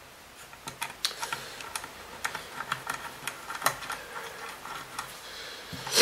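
Small metal screws clicking and tapping as they are put back into their holes in a Kirby vacuum's motor housing by hand: irregular light clicks, a few louder ones, throughout.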